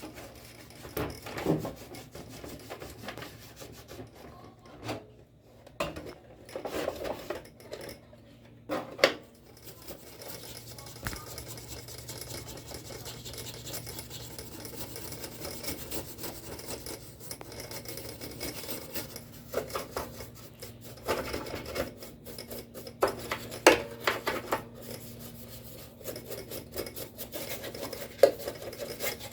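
Irregular rubbing and scraping from hands working on an old cassette radio, with occasional sharper knocks, over a steady low hum.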